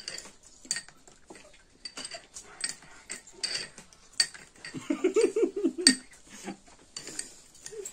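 Metal fork and spoon clinking and scraping against a small glass bowl while mixing mulberries, a run of sharp ringing clicks. About five seconds in there is a brief hummed voice sound.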